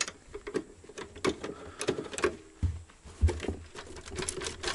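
Irregular clicks and knocks as a screwdriver and loose screws are handled, then the hard plastic case of a radio cassette player knocks as it is lifted and tilted.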